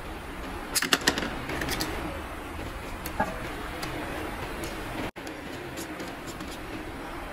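Plastic toilet-cistern flush-valve and push-button parts clicking and rattling as they are handled and fitted together, with a cluster of sharp clicks about a second in, over a steady background hiss.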